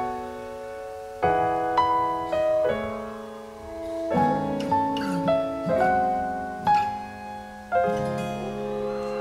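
Piano playing the slow closing chords of a ballad without vocals: a chord struck every second or so and left to ring out.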